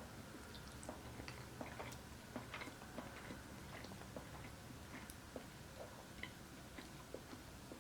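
Close-miked chewing: faint, irregular wet clicks and smacks of a mouth eating.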